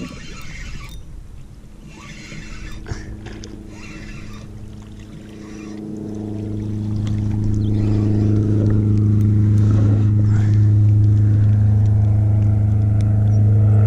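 A steady low motor hum with overtones, swelling from about six seconds in and then holding loud and level.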